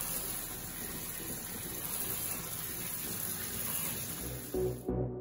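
Steady hiss of water running from a tap. Near the end it cuts off and background music with a pulsing beat comes in.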